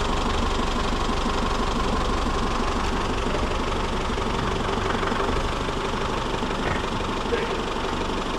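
Isuzu pickup's diesel engine running at idle, a steady low knocking rumble that eases off slightly near the end.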